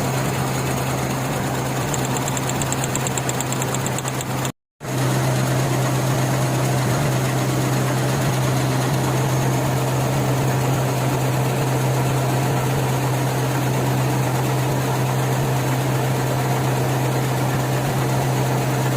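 Suzuki Mehran's three-cylinder petrol engine idling steadily with a misfire, the cylinder 'missing'. The sound drops out completely for a moment about four and a half seconds in.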